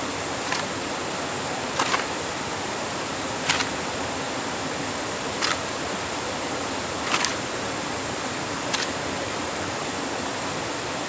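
Six sharp knocks, one every one and a half to two seconds, over a steady high-pitched hiss.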